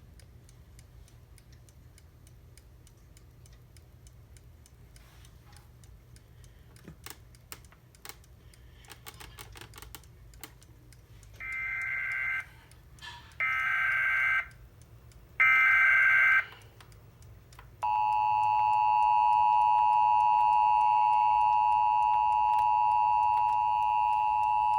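Emergency Alert System activation over the radio. After some faint scattered clicks, three short bursts of the SAME digital header tones, each about a second long, mark the start of a new alert. About 18 seconds in, the long steady two-tone EAS attention signal begins.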